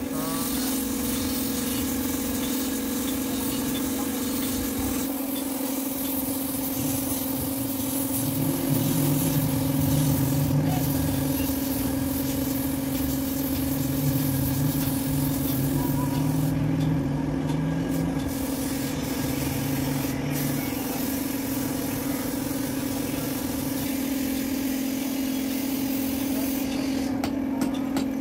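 Compressed-air paint spray gun hissing as it sprays paint, over a steady machine hum; the hiss drops out briefly twice, once past the middle and once near the end.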